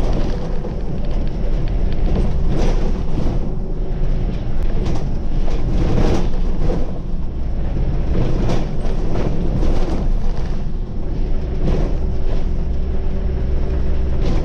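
Scania city bus driving along: a steady low rumble of engine and road noise, with several knocks and rattles spread through it.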